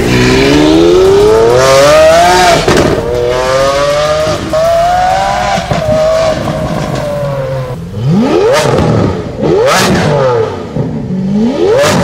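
Lamborghini Aventador Ultimae's V12 exhaust accelerating hard, its pitch climbing steeply, dropping at a gearshift and climbing again, then holding fairly steady. In the second half, several quick rev blips rise and fall sharply.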